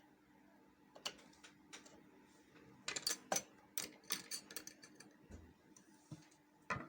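Screwdriver and metal sewing-machine parts clicking and tapping at irregular intervals while the presser-foot screw is tightened. The clicks are faint and come in a small cluster about three to four and a half seconds in.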